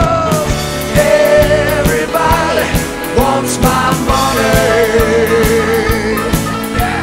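Background rock song with singing over a steady drum beat.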